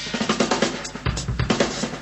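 Drum kit playing a fast pattern of snare and bass drum strokes.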